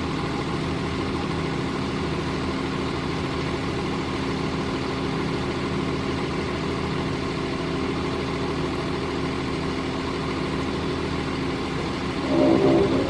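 Cummins ISB-190 six-cylinder diesel of a Gradall wheeled excavator idling steadily. Near the end a louder pitched sound lasts under a second.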